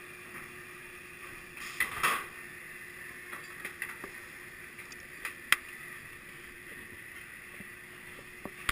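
Inverted roller coaster train coming to rest in the station as its shoulder restraints are released: scattered clunks and clicks over a steady hiss, the loudest a short burst about two seconds in, with a sharp click about five and a half seconds in and more clicks near the end.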